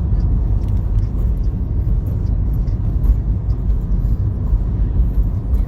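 Storm-force wind buffeting the microphone: a loud, steady low rumble that swells and dips with the gusts.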